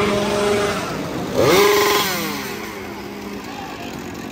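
Chainsaw engine revving: held high at the start, a sharp rev about a second and a half in, then dropping back toward idle.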